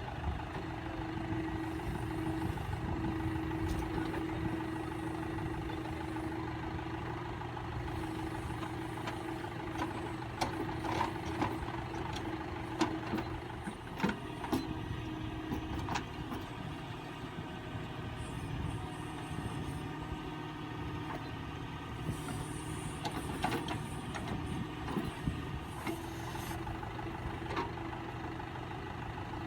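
Tractor diesel engine running steadily while working a backhoe, with occasional sharp knocks and clanks scattered through.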